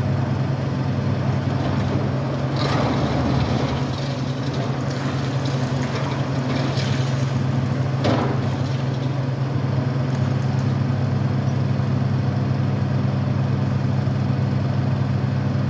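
Diesel engine of a Caterpillar high-reach demolition excavator running steadily while its jaw works on concrete. Crunching and falling debris come about three seconds in and again around six to seven seconds in, with a sharp crack about eight seconds in.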